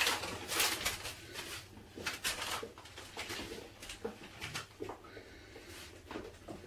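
Gloved hands mixing seasoned raw chicken drumsticks in a plastic tub: irregular soft rustles and knocks, busiest in the first few seconds.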